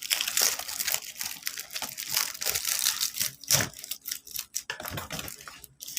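Gift packaging being crinkled and torn open: a dense run of rustling and crackling, busiest in the first three seconds or so, then thinning to scattered crackles.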